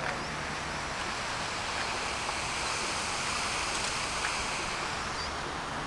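Steady rush of falling water from Buckingham Fountain's jets splashing into its basin.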